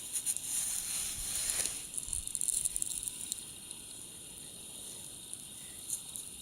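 Icy slush and water swished and crackling as a small coin is rinsed through the ice: a hissing rush for about two seconds, then faint crackles over a steady hiss.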